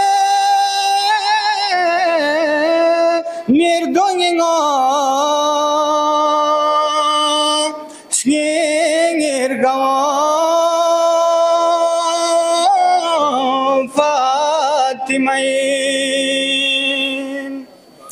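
A woman singing a devotional song (manqabat) solo and unaccompanied, holding long notes with wavering trills, with short breaths between phrases.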